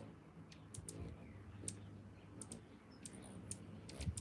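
Faint, irregular short clicks, about a dozen scattered through, over a low steady hum.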